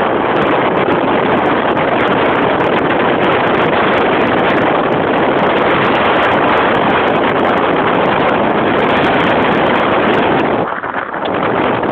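Loud, steady wind rush on a phone's microphone while riding in an electric golf cart at speed, easing briefly near the end.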